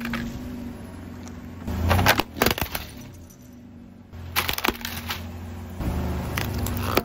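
Crunching and cracking of things being crushed under a car tyre, including a drink can being flattened. There is a burst of sharp cracks about two seconds in and another run of cracks and crunches a little past the middle.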